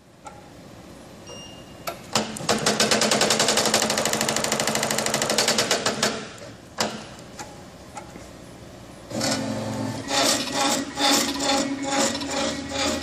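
Spangle film motif punching machine cycling at high speed: a fast, even run of strikes, about fifteen a second, for around four seconds. After a pause it starts clattering again, less evenly, over a steady low hum.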